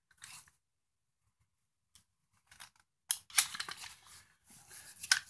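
A cardboard shipping box being handled: a brief rustle at the start, then from about three seconds in a run of crackling scrapes and rustles of cardboard and packaging.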